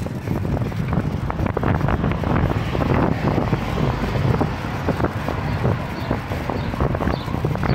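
Wind buffeting the microphone of a handlebar-mounted camera on a moving bicycle, a steady low rumble broken by many small rattling clicks.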